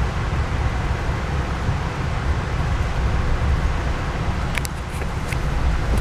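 Steady low rumble of a moving Amtrak passenger train heard from inside the car, wheels running on the rails, with a few sharp clicks about four and a half seconds in.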